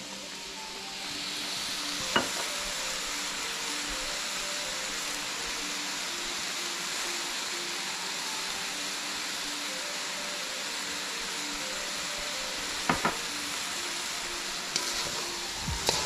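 Chicken and shrimp frying in a wok with a steady sizzle. A sharp knock comes about two seconds in and two more near the end. Then the food is stirred with two wooden spatulas, clattering against the wok.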